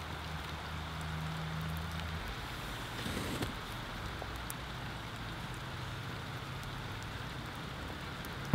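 Steady rushing of a forest creek, with a low steady hum underneath for the first two seconds.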